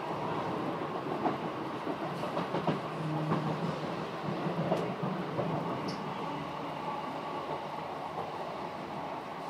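Electric passenger train running at speed, heard from inside the carriage: a steady rumble with scattered clicks of the wheels over the track, and a low hum that comes in for a couple of seconds near the middle.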